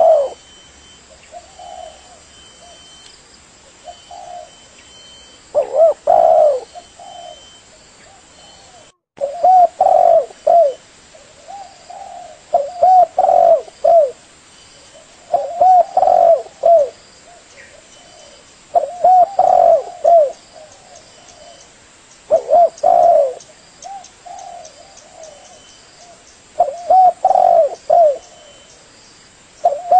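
Spotted doves cooing: phrases of several short coos, a new phrase every two to four seconds, with a momentary dropout in the sound about nine seconds in.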